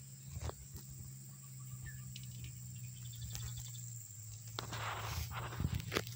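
Footsteps crunching through dry, dead grass and ferns, once about half a second in and then several from about four and a half seconds on. A steady high insect buzz and a low steady hum run behind them.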